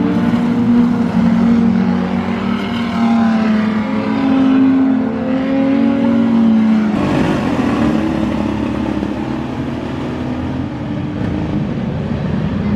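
Stock car engines racing around a speedway track, revving and dropping in pitch as the cars go round. The sound changes abruptly about seven seconds in.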